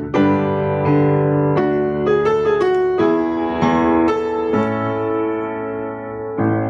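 Background music: piano or electric piano playing a run of sustained notes and chords, ending on a chord that rings out near the end.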